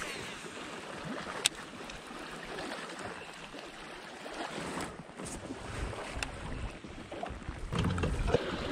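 Small waves lapping against a kayak's hull, with wind on the microphone. A few sharp clicks stand out, about one and a half, five and six seconds in.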